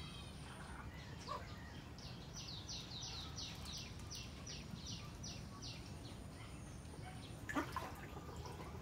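A bird calling a quick run of about a dozen short, high notes, each falling in pitch, about four a second, over a steady low background noise. A sharp knock sounds near the end.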